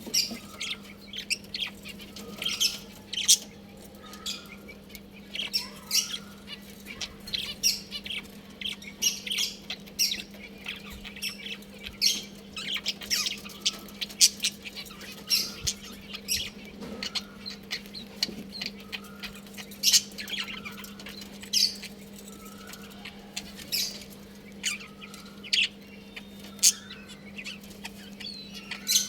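A colony of budgerigars chirping and chattering, with many short, sharp chirps from several birds overlapping. A steady low hum runs underneath.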